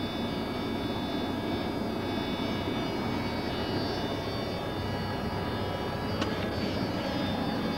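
Heavy truck's diesel engine and road noise heard from inside the cab, running steadily, with a single short click about six seconds in.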